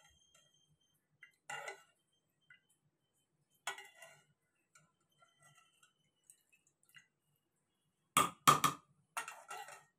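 Steel ladle clinking against an aluminium pressure cooker pot as boiled greens are scooped out of their cooking water: a few scattered light clinks, then two sharp knocks close together about eight seconds in, followed by a short rattle.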